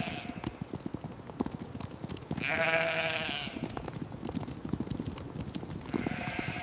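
Sheep bleating: a long wavering bleat about two seconds in, with shorter bleats at the start and near the end, over scattered light clicks.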